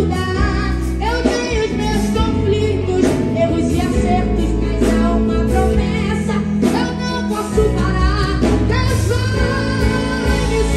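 A woman sings a Portuguese gospel song into a microphone, backed by a live band with electric guitar and drums.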